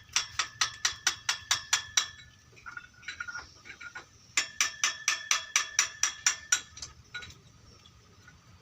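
A hammer striking metal in two quick runs of about ten blows each, about five a second, each blow ringing. This fits knocking out a bandsaw wheel's bearing and shaft.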